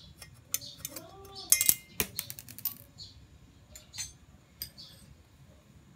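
Light clicks and metallic clinks as a Voile strap's metal buckle and the strap are handled against a Problem Solvers Bow Tie metal strap mount on a bicycle frame. The sharpest, ringing clink comes about a second and a half in.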